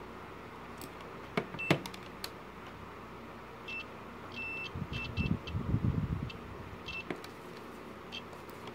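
Multimeter giving short, broken beeps as its probe taps and scrapes a loudspeaker's solder tab, with sharp clicks of probe contact. Midway the speaker itself gives a scratchy low crackle as the meter's current passes through its voice coil, a sign that the repaired tinsel-wire connection works.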